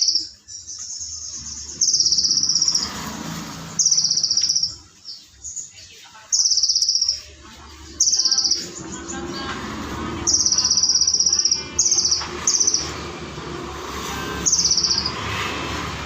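Kolibri ninja sunbird singing hard: loud, high, rapid trilled phrases repeated every one to two seconds, with quieter chattering song between them. Its song is laced with mimicked phrases of cililin and crickets.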